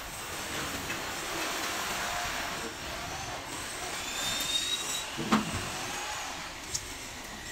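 Steady rushing background noise, with a worker's plastic paint bucket being handled over it: a short high squeak about four seconds in and a single sharp knock about a second later.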